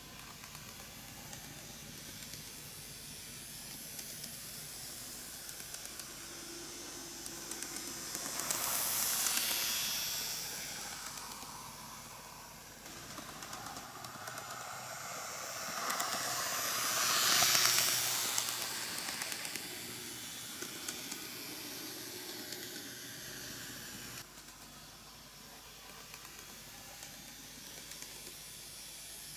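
KATO N-gauge EF81 300 model electric locomotive running on its own around the track, a hissing whir of its motor and wheels that swells twice as it passes close, about nine seconds in and again around seventeen seconds.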